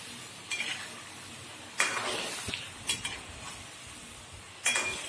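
Strips of maida dough deep-frying in hot oil on high flame with a steady sizzle, while a perforated metal skimmer stirs them and scrapes and clinks against the metal kadhai about five times.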